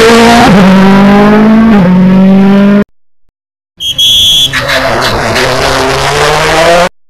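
Ford Fiesta RS WRC rally cars' turbocharged 1.6-litre EcoBoost four-cylinder engines running hard through a tight chicane. The note dips twice in the first two seconds and cuts off abruptly just before the three-second mark. After a brief gap, a second car comes through with a short high-pitched whistle and its engine note rising until it cuts off near the end.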